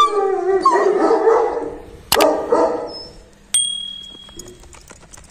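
Pakistani Bully Kutta dog vocalising with whines and yips that bend up and down in pitch, with a sharp knock about two seconds in; the sound drops off in the second half.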